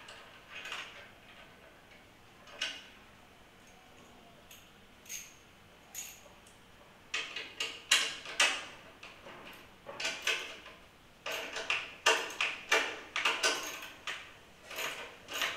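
Socket wrench clicking and metal clinking as the bash-plate bolts are undone: a few scattered clicks at first, then quick runs of clicks from about seven seconds in.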